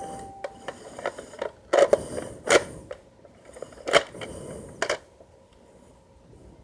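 A string of sharp clicks and knocks, about ten in all, irregularly spaced, the loudest about two, two and a half and four seconds in, ending about five seconds in.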